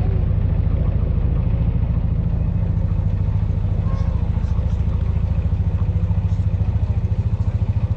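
Canal trip boat's inboard engine running at slow cruising speed: a steady, even low chugging, heard from on board.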